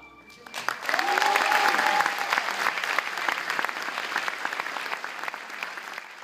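Audience applauding in an auditorium. The applause breaks out about half a second in and slowly dies down.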